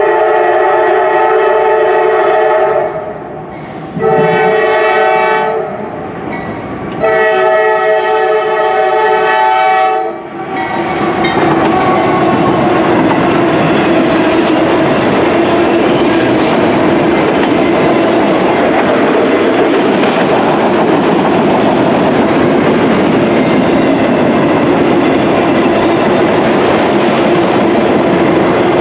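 Norfolk Southern GE AC44C6M locomotive's air horn sounding three blasts for the grade crossing, long, shorter, then long again. From about ten seconds in, the train passes close by: a loud, steady rumble and clatter of steel wheels on rail as the auto rack cars roll past.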